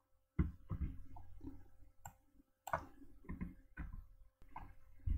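Faint, irregular clicks and taps of a computer keyboard and mouse, spaced unevenly.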